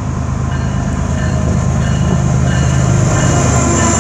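CN freight train's lead diesel locomotives approaching and running past close by, the low engine drone getting louder as they draw level.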